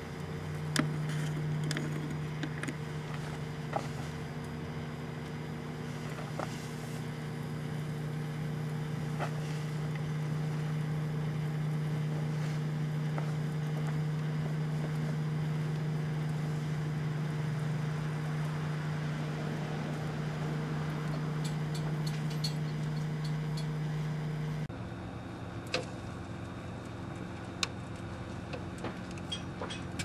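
Microwave oven running with a steady low hum, while a pumpkin burns inside with scattered sharp crackles and pops. Near the end the hum drops slightly and changes tone.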